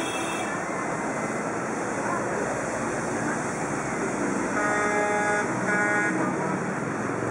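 Steady street traffic noise, with a vehicle horn honking twice, about five and six seconds in.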